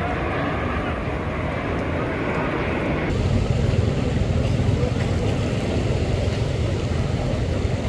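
Steady rushing noise of floodwater and wind, a low rumble that grows heavier after a cut about three seconds in.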